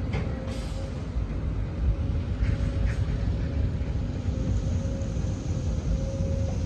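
Road and construction-site noise: a steady low rumble of vehicles or machinery, with a faint steady hum and a few light clicks.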